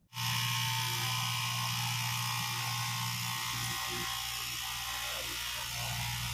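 Electric straight-knife cloth cutting machine running with a steady buzz as its reciprocating blade cuts through a stack of fabric layers; the sound starts abruptly at the very beginning.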